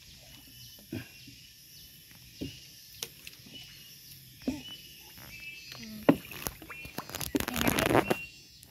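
Wooden canoe on the water: scattered knocks and thumps against its wooden hull and seats, then a loud burst of water splashing about seven seconds in, with faint chirps in the background.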